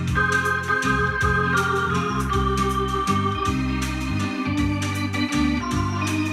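Electronic keyboard with an organ sound playing an instrumental interlude of a slow Finnish schlager song: a melody line stepping down over sustained bass notes, with a steady beat.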